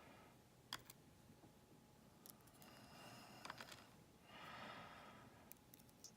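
Near silence: soft breathing close to the microphone, with a few faint small clicks.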